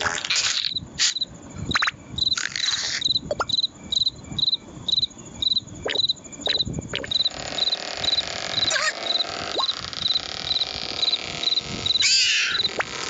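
Crickets chirping steadily, about two short high chirps a second. Scattered short squeaks and knocks sound over it.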